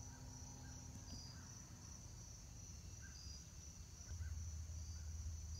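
A steady, high-pitched chorus of insects trilling, with short chirps repeating over it. A low rumble comes in about four seconds in.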